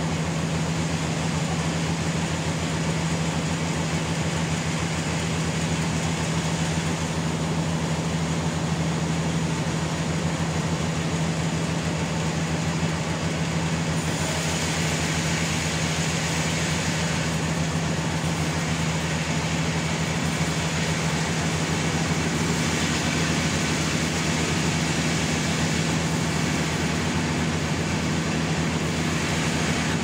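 Sawmill machinery running steadily, with a constant low hum over a hiss.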